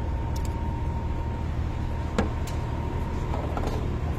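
Steady low mechanical hum with a faint steady whine, and a few short light clicks, the sharpest about two seconds in.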